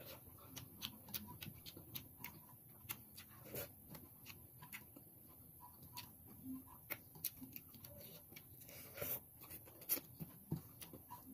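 Faint eating sounds: chewing and lip smacks, a scattered run of small wet clicks, with a brief closed-mouth hum once or twice.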